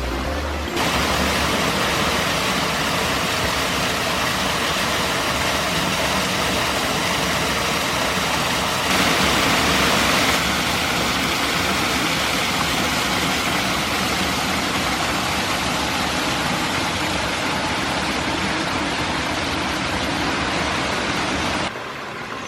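Mountain stream rushing over rocks: a steady, dense rush of water, briefly louder for about a second near the middle.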